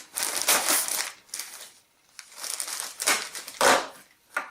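A mailed package being opened by hand: its wrapping crinkles and rustles in two spells, with a short louder crunch near the end.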